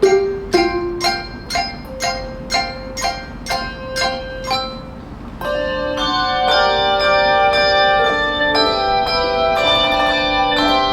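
Handbell choir playing: single bell notes struck about twice a second, each ringing and fading, then about halfway through many bells sound together in fuller, held chords.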